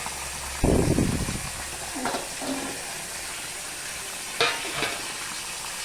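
Food frying in a pan with a steady sizzle. A low thump comes a little over half a second in, and a few shorter sounds follow later.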